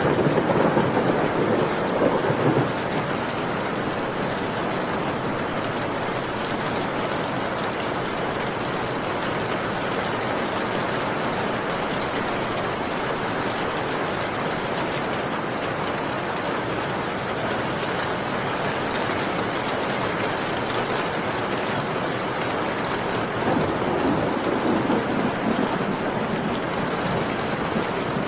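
Steady rain falling, with a rumble of thunder in the first couple of seconds and another about three-quarters of the way through.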